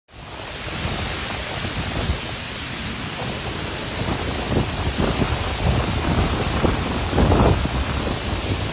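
Heavy rain pouring down onto a paved street, a dense steady hiss, with several low rumbles rising through it past the halfway point.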